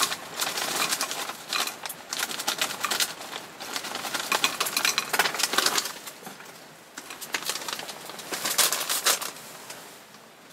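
Crinkly plastic snack bag rustling as crisp fried rice crackers (arare) pour and clatter into a wooden bowl, then the bag crackles again in a second burst as it is handled and folded, dying away near the end.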